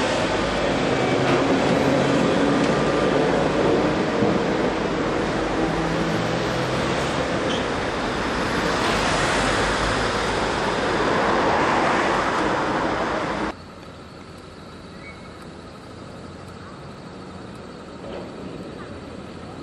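A Gotha T2-62 tramcar running close by, its motor hum and wheel-on-rail noise mixed with steady road traffic noise. About two-thirds of the way through the sound cuts abruptly to a much quieter street background, with the tram far off.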